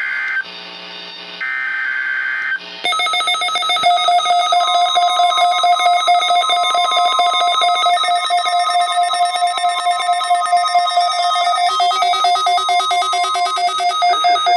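NOAA Weather Radio Required Weekly Test signal: two short bursts of harsh electronic SAME data code in the first few seconds, then a loud, rapidly pulsing electronic alert tone with a thin steady tone under it for most of the rest.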